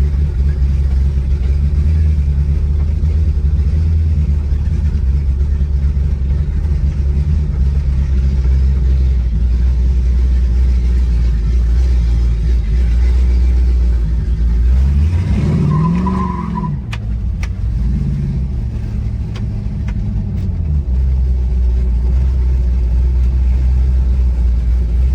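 1967 Pontiac Firebird's 400 cubic inch big-block V8 running on the move with its exhaust diffuser open: a steady low drone, with the engine revving up and back down about fifteen seconds in and again a few seconds later.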